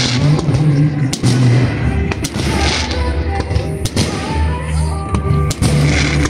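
Fireworks shells bursting overhead with several sharp bangs, a second or so apart, over music playing.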